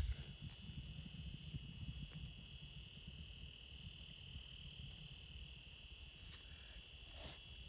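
Faint steady high-pitched whine over a low rumble, with a couple of faint clicks near the end.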